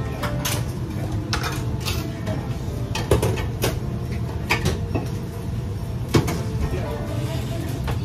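Restaurant kitchen noise: a steady low rumble from the extractor hood, with scattered sharp clanks of metal ladles and utensils against pots, pans and bowls. The loudest clanks come about three and six seconds in.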